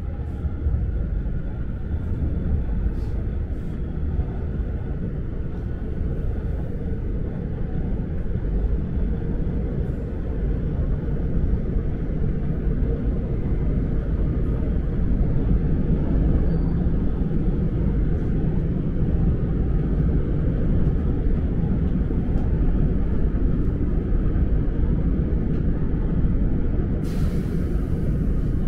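Seoul subway train running, heard from inside the carriage: a steady low rumble that slowly grows louder, with a brief hiss near the end.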